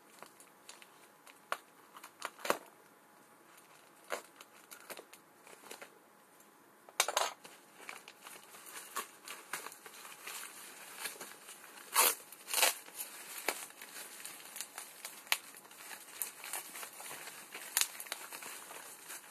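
A plastic padded mailer and bubble wrap crinkling and tearing as the package is pulled open by hand, in irregular sharp crackles. The loudest bursts come about seven seconds in and around twelve seconds.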